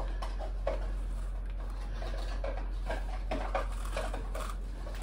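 Light handling noises: faint scattered clicks, taps and rubbing over a steady low hum.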